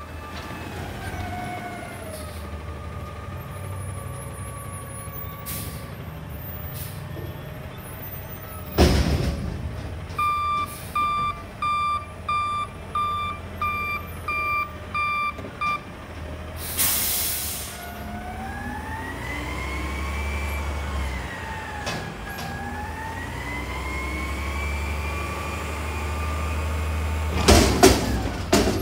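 Front-loader garbage truck with a Wayne body: diesel engine running, a sudden loud burst about nine seconds in, then about eight reversing beeps and a short air-brake hiss. The engine then revs up and down as the hydraulic front arms raise the recycling dumpster, and loud clanks near the end come as the container is tipped over the cab and emptied.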